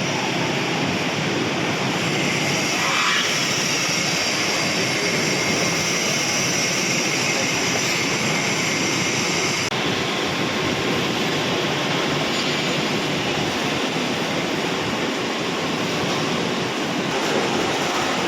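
Continuous biomass carbonization furnace running: a loud, steady mechanical rush like a large fan or blower. A high whine in it stops abruptly about halfway through.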